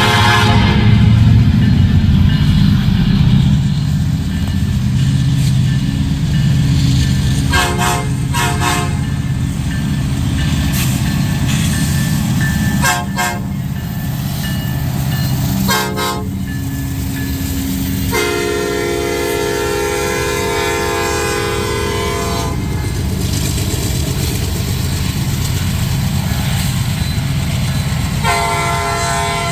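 Nathan P5 five-chime locomotive air horn blowing a horn show: a few short toots, then a long blast of about four seconds, and another blast starting near the end. Under it, the heavy rumble of the passing diesel freight locomotives.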